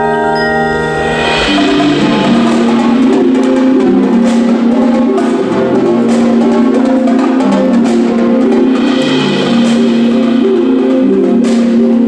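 Indoor percussion ensemble playing: marimbas and other mallet keyboards with marching drums. Held chords give way about a second and a half in to a busy, repeating mallet pattern with drum hits.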